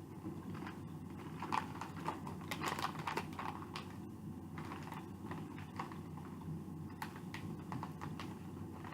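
Crisp kraut chips crunching as they are chewed: irregular crackles, heaviest in the first few seconds and sparser later, over a steady low hum.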